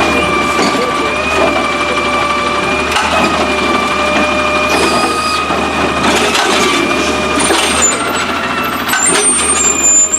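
Autocar ACX garbage truck with a Heil Rapid Rail side-loader body running, with a steady high-pitched whine over the engine.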